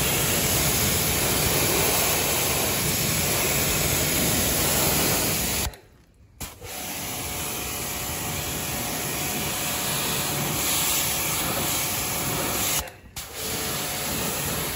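High-pressure water jet from an electric pressure washer hissing steadily as it sprays the concrete floor and a motorcycle's engine and wheel, blasting off mud. It breaks off abruptly twice for about half a second.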